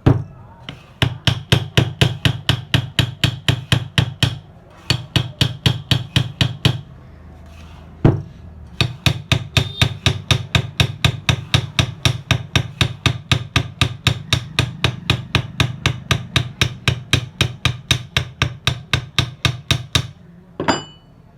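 A piece of steel file striking a ceiling fan's worn shaft in quick, even blows, about four a second, in runs with two short pauses. It is scoring marks all round the shaft end to roughen it so it grips the bearing again.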